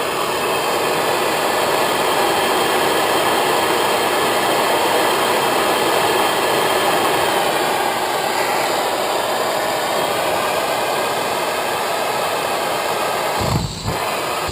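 MAP gas torch flame burning with a loud, steady rushing hiss as it heats a spark plug to burn off carbon fouling. Near the end the flame dips briefly with a low bump.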